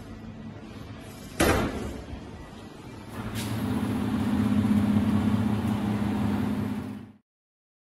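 Ribbon blender's motor and gear drive running with a steady low hum. A single sharp knock comes about a second and a half in, and the hum grows louder about three seconds in, then cuts off abruptly near the end.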